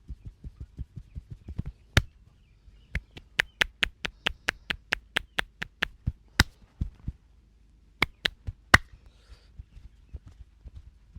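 Percussive massage strokes by hand: a quick run of soft thumps about five a second, then a string of sharp slaps about three a second, and a few loud single cracks a little past the middle before softer tapping resumes.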